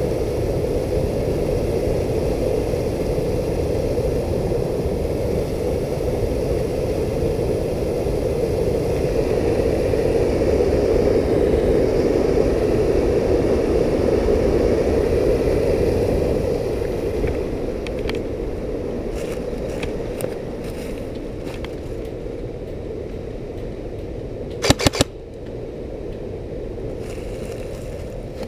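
Steady rushing noise on the camera microphone that eases a little more than halfway through. Later come a few sharp clicks and a quick, loud cluster of cracks, like an airsoft gun firing in the game.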